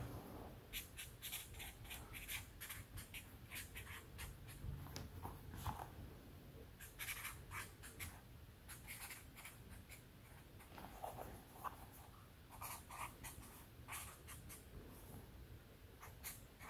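Green Sharpie felt-tip marker writing on a pad of sticky notes: a run of short, scratchy pen strokes with brief pauses between words.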